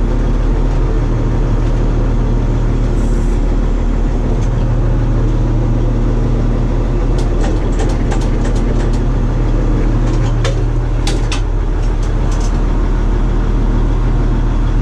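Bizon combine harvester's diesel engine running steadily at low revs, with a scatter of clicks and knocks about halfway through as the hydraulic levers are worked.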